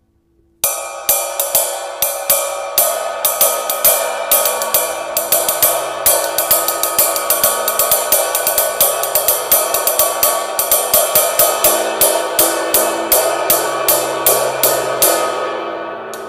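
Zildjian K Custom Left Side Ride cymbal, without its rivets, played with a wooden stick in a steady ride pattern of about three to four strokes a second, each stroke a clear ping over a building wash. The playing starts about half a second in and stops shortly before the end, leaving the wash to ring out.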